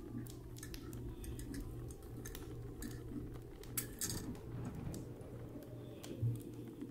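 Quiet puffing on a tobacco pipe: scattered soft clicks and lip smacks, one sharper click about four seconds in, over a steady low hum.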